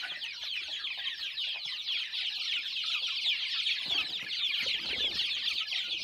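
A crowd of young village-chicken chicks peeping all at once, a dense, unbroken chorus of short, high, falling peeps.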